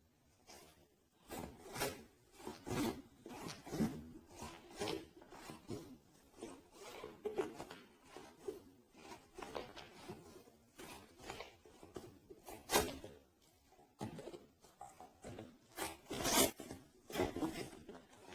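Irregular rubbing and scratching strokes close to the microphone, a stroke every second or so, uneven in strength, with the loudest scrapes about two-thirds of the way through and near the end.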